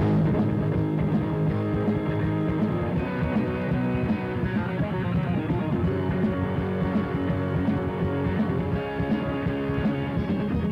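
Live heavy metal band playing at full volume: electric guitars, bass and drum kit.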